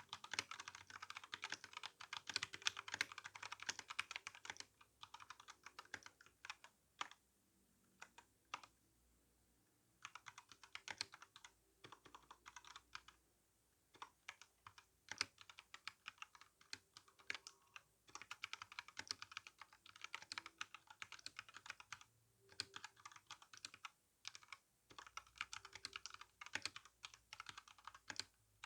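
Typing on an RK61 mechanical keyboard with brown tactile switches and GSA-profile keycaps: quick runs of key clacks, with two brief pauses midway before the typing picks up again.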